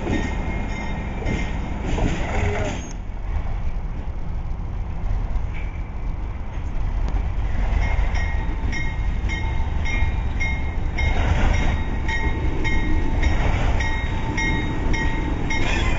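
Alco RS32 diesel-electric locomotive with its V12 diesel running, a deep, steady rumble as it moves along the track. From about halfway a short, high ringing tap repeats about every half second over it.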